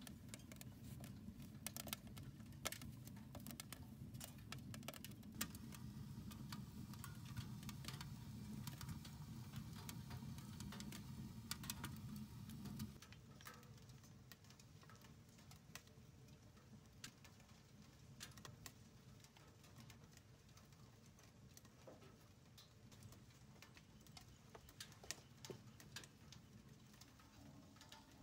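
Wood fire crackling in a small handmade steel camping stove: scattered sharp pops and ticks. A low steady rumble lies under it for the first half and stops about halfway through.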